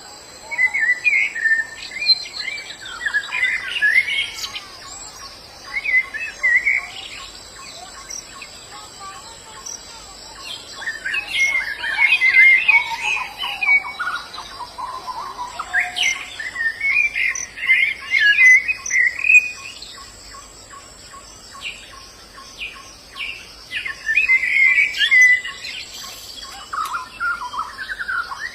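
Wild white-eyes (pleci) singing: bursts of rapid, jumbled high twittering lasting a few seconds each, repeated about six times with short pauses between.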